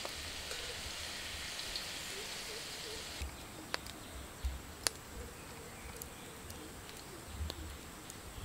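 Hot oil sizzling as battered chicken pieces deep-fry in a pan, a steady hiss that cuts off abruptly about three seconds in. After it comes a quieter background with scattered light ticks.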